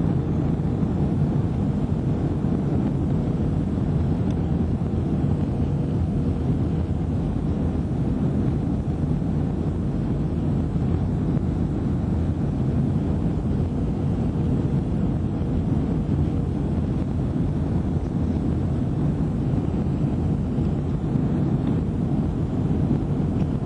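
Steady low rumble of a jet airliner's engines and rushing air heard inside the cabin on final approach with the flaps extended, with a faint steady hum running through it.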